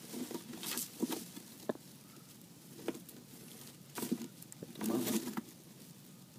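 Dry straw rustling and crackling in short, scattered bursts as a Rhode Island Red hen shifts about in her nest box, arranging the nest before laying.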